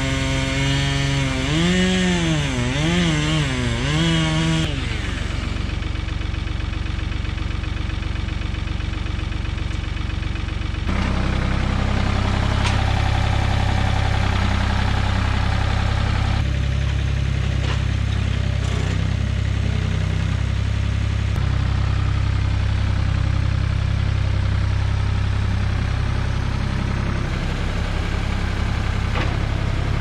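A chainsaw revving up and down for the first few seconds over a farm tractor's engine. From about eleven seconds in, the tractor engine runs louder and steady as the tractor is driven, with a few light knocks.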